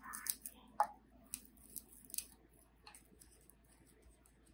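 Dried cannabis bud being broken apart by hand and packed into a grinder's loading chamber: faint crackling and rustling, with a few small crisp snaps over the first two seconds, then quieter.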